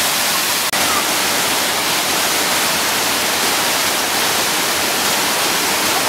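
Waterfall pouring over boulders into a plunge pool: a steady, even rush of falling and splashing water, with one brief dropout under a second in.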